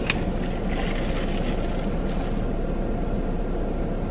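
Steady low rumble inside a car's cabin, from the car's engine idling and its ventilation running.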